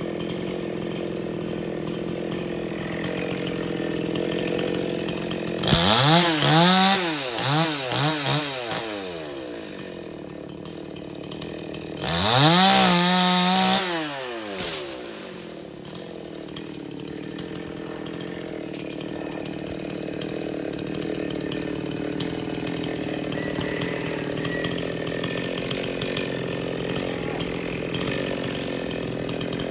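Two-stroke chainsaw idling, revved hard twice for a few seconds each, about six seconds in and again about twelve seconds in, its pitch climbing and falling back.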